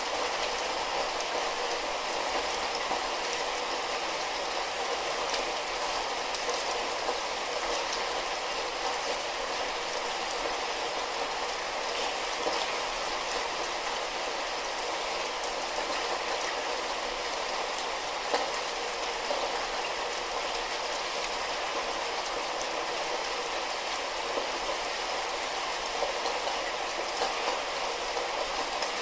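Light rain falling steadily: an even hiss with scattered single drops ticking louder here and there.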